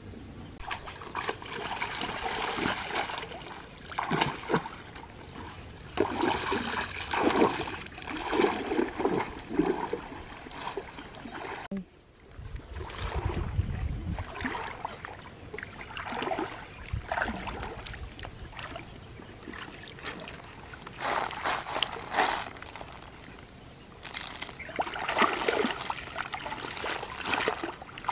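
Shallow stream water splashing and sloshing in irregular bursts as hands grope through it and over submerged rocks. About halfway through, the splashing breaks off and a low rumble runs for a couple of seconds.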